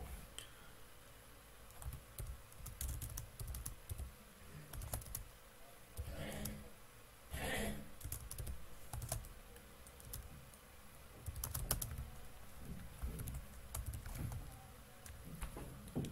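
Typing on a computer keyboard: irregular key clicks in short runs separated by pauses.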